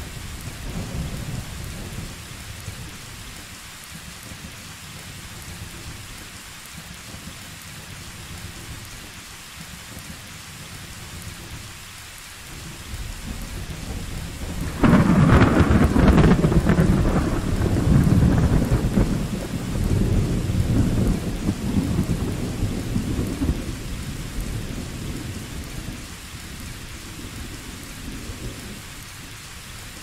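Steady rain with thunder. A low rumble fades over the first few seconds; then a rumble swells and, about fifteen seconds in, breaks into a loud thunderclap that rolls on and dies away over the next ten seconds.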